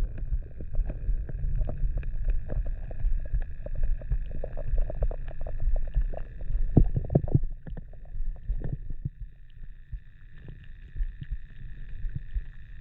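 Muffled underwater sound from a spearfisher's camera as he swims: a low rumbling water noise with many small knocks and clicks, over a faint steady high hum. It grows quieter from about eight seconds in, then picks up again near the end.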